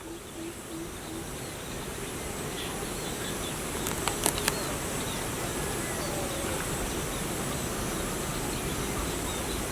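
Farmyard ambience: birds calling over a steady buzzing background, with a few short low calls in the first second and several sharp clicks about four seconds in.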